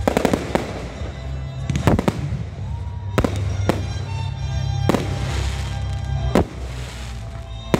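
Fireworks display: aerial shells bursting with sharp bangs about once or twice a second, with a quick run of crackles near the start, over music playing in the background.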